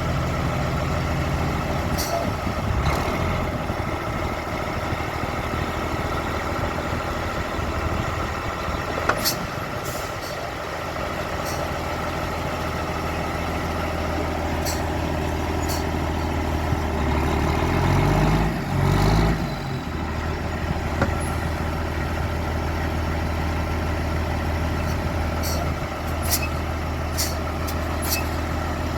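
A vehicle engine running steadily, with a brief rise and fall in engine pitch about two-thirds of the way through and a few scattered clicks.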